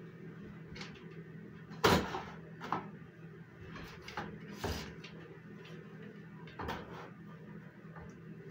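Spoons knocking and scraping against a glass mixing bowl and loaf pans as thick batter is scooped out and divided; several sharp knocks, the loudest about two seconds in, over a faint steady hum.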